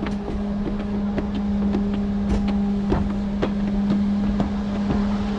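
Steady low mechanical hum on one constant pitch, with scattered clicks and knocks over it.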